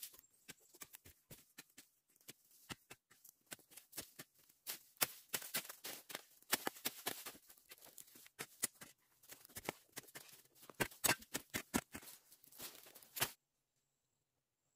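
Footsteps crunching over dry, burnt twigs and leaf litter: a dense run of irregular snaps and crackles that stops suddenly about a second before the end.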